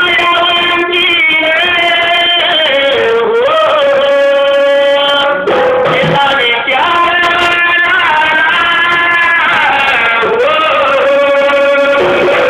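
A male folk singer singing in the Marathi shahiri style over accompaniment, holding long high notes and sliding up in pitch into them twice.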